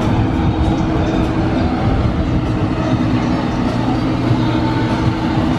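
A steady low mechanical drone, like a motor or engine running at a constant speed, over a rumbling background.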